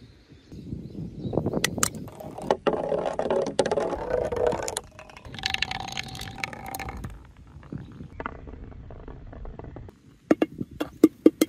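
A marble-run ball rolling down a rain gutter and on through a clear plastic pipe: a rolling rumble with a hollow ringing tone, whose pitch changes about halfway as the ball passes from the gutter into the pipe. It dies away around ten seconds in, and is followed near the end by a quick run of sharp clicks.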